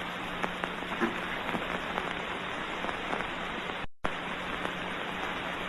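Hiss and crackle of an early optical film soundtrack with a steady low hum, with no other sound over it. The sound cuts out completely for an instant about four seconds in.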